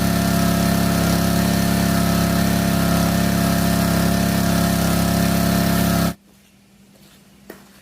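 Small engine running steadily at constant speed, cutting off abruptly about six seconds in; a few faint clicks follow.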